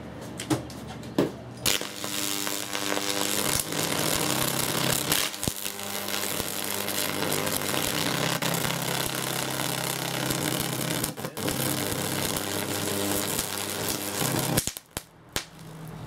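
High-voltage arc from a microwave-oven transformer and resonator, at about 4 kV, burning through a faulty string of LED Christmas lights. It sets in about two seconds in after a few sharp clicks, then runs as a loud, harsh crackling buzz over a steady low hum, and cuts off suddenly near the end.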